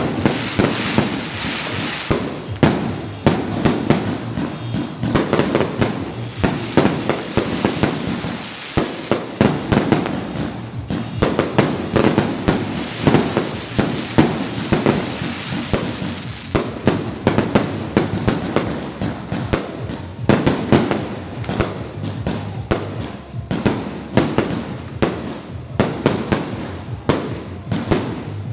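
Aerial fireworks bursting overhead in rapid succession: a dense, continuous series of bangs and crackles, with a brief lull about nine seconds in.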